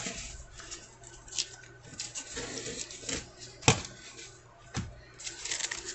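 Paper and tape being pulled off a wrapped stack of sleeved trading cards, with rustling and a few sharp taps as the cards are handled. The loudest tap comes near the middle, and denser crackling starts near the end.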